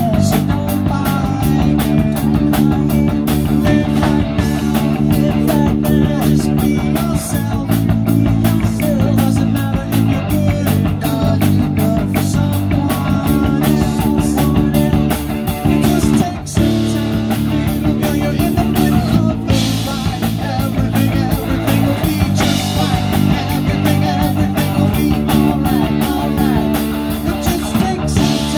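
A rock band playing live: drum kit, bass guitar and electric guitar over a steady beat.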